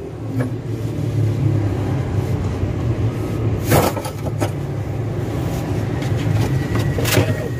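Steady low rumble of an idling engine, with a few sharp knocks and clicks over it, the loudest a little before the four-second mark.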